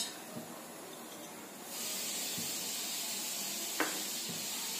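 A steady hiss sets in about two seconds in and holds at the stove, where desi ghee is heating in an iron kadhai over a gas burner. A single light click comes near the end.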